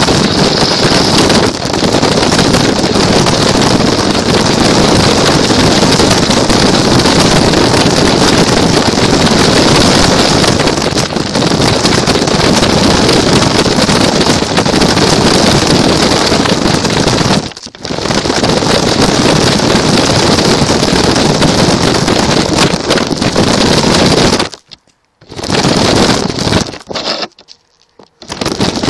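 Loud rushing noise from a camera riding on a small toy car as it drives: wind and rumble on the microphone over a steady high whine. It dips briefly partway through and drops to near silence twice near the end.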